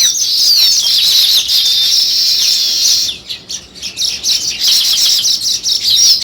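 House sparrows chirping: a dense run of quick, overlapping chirps that drops away for about a second, roughly three seconds in, then starts up again.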